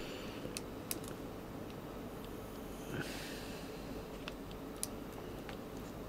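Faint handling noise of fingers working a thin flex ribbon cable and its tiny board connector: a few light, sharp ticks spread apart, with a soft rustle about three seconds in.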